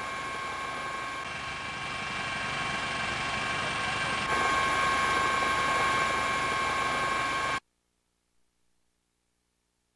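Helicopter running steadily: a whine of several high steady tones over a rushing noise, growing louder about four seconds in. It cuts off abruptly about seven and a half seconds in, leaving near silence.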